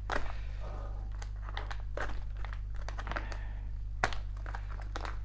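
Plastic filament bag crinkling and rustling in the hands as it is worked open, with irregular crackles, the sharpest about four seconds in.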